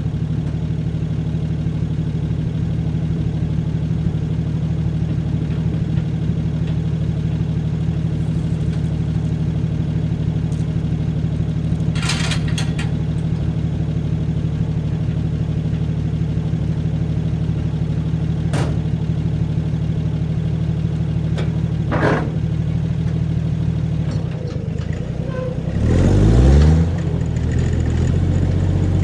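An engine runs steadily, with a few sharp clanks along the way. Near the end it revs up briefly, then settles back to a steady run.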